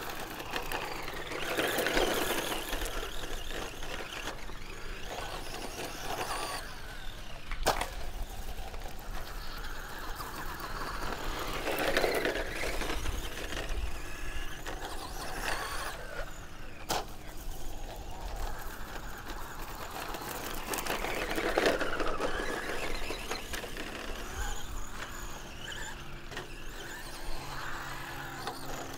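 Brushless electric RC truck driving around a concrete track: its motor whine swells and glides up and down three times as it speeds up, passes and slows, with two sharp knocks between the passes.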